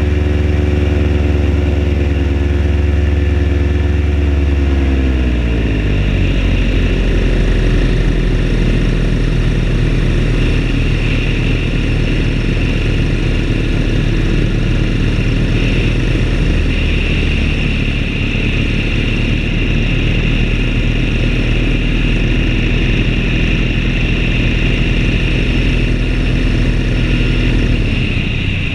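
Paramotor engine and propeller running at high revs, then throttled back about five seconds in, the pitch falling and settling into steady lower running. Near the end the revs drop again.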